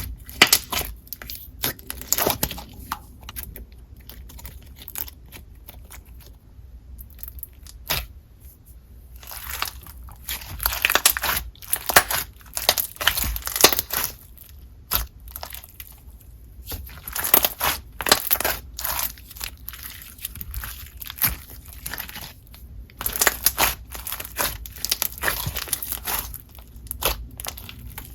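Hands squishing and poking a clear slushy slime with beads, giving irregular bursts of crunching and crackling with short quieter pauses.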